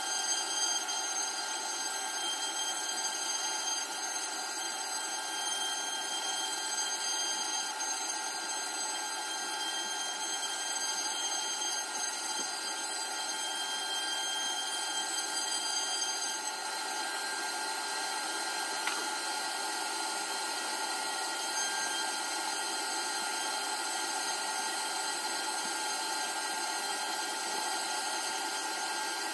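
Spindle of a home-built CNC router milling a pocket in white-faced chipboard, with a vacuum cleaner nozzle sucking up the chips beside the cutter. A steady whine with several high tones; one of them stops about two-thirds of the way through.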